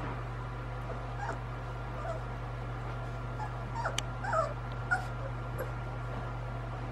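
Young puppies whimpering and yipping in short high squeaks, a few scattered early and several in quick succession about four to five seconds in, over a steady low hum.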